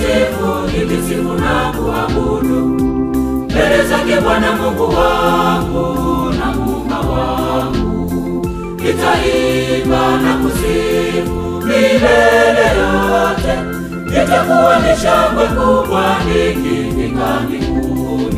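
Church choir singing a Swahili gospel song in several voice parts over instrumental backing.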